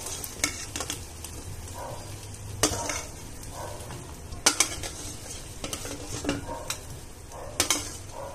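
A steel slotted spoon clinks sharply against a steel kadhai and bowl several times as fried lavang lata are lifted from hot oil into sugar syrup, over a low sizzle of frying oil.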